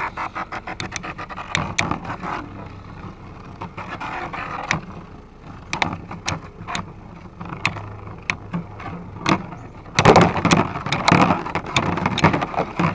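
Two Beyblade spinning tops battling in a stadium: a steady whir from the spinning tops, broken by many sharp clacks as they collide, with a louder flurry of clashing about ten seconds in.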